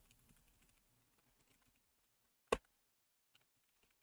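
Faint computer keyboard keystrokes, with one louder, sharper key press about two and a half seconds in.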